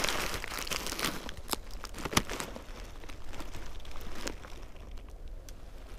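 Plastic bait bag of 5 mm garlic fishing pellets crinkling as it is handled and torn open, with several sharp crackles.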